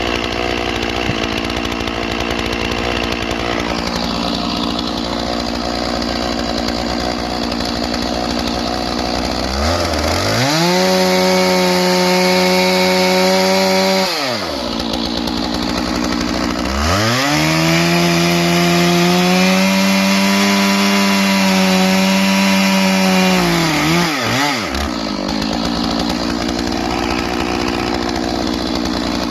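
Stihl MS 461 two-stroke chainsaw idling, then opened to full throttle twice while bucking logs. The first time it holds high revs for about four seconds, the second for about seven, falling back to idle after each. It revs up again at the very end.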